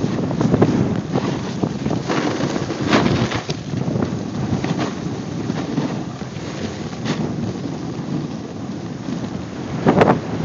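A snowboard sliding and carving down a groomed slope: the board's edges scrape across the snow under a steady rush of wind on the microphone. Louder scraping surges come every few seconds, the strongest near the end.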